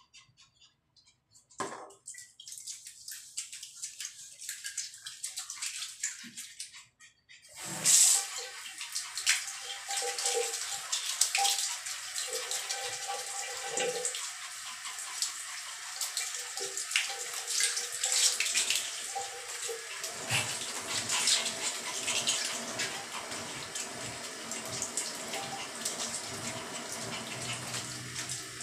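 Shower water running and splashing onto a small dog being washed on a tiled floor, starting about eight seconds in and running steadily after that. Before it, only a few faint handling sounds.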